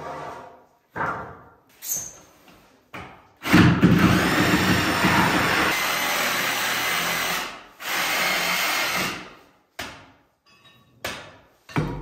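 Handheld power tool working, probably on wood: a few short bursts, then a steady run of about four seconds, a second run of over a second, and a few more short bursts near the end.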